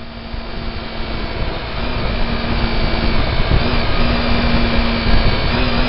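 Car cabin noise while driving on an open road: a steady rush of tyre and road noise with a low engine hum underneath. It grows louder over the first couple of seconds.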